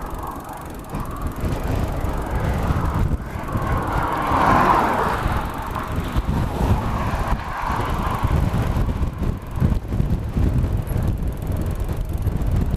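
Strong, gusty wind buffeting the microphone: a constant low rumble with a louder rushing swell about four to five seconds in.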